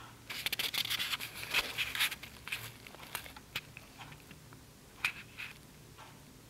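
A flurry of dry rustling and scratching lasting about two seconds, followed by a few scattered clicks and scrapes.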